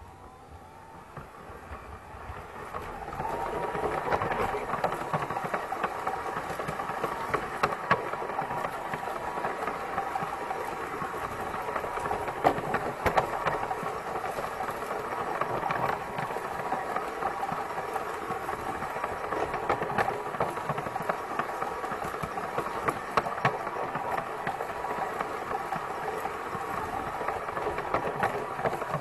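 Piko G-scale BR 80 model locomotive running on brass track, heard from on board the train: a steady whir of the electric motor and gears, with a rattle and scattered sharp clicks of wheels crossing rail joints. It builds up over the first few seconds as the train gets moving, then runs steadily.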